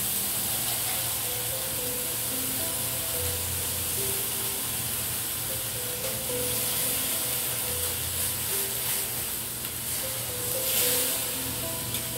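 Melting ice sizzling with a steady hiss on a very hot Lacanche chrome-plated iron teppanyaki plate as it is cleaned, over background music.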